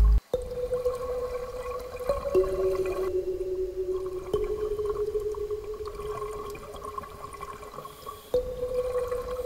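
Underwater ambience: bubbling, rushing water noise over a steady hum. The hum changes pitch a few times, each change marked by a sharp click.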